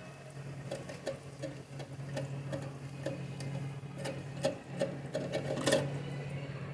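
Irregular light clicks and taps, a few a second, over a steady low hum: handling of a toilet cistern's fill-valve parts, with a louder click near the end.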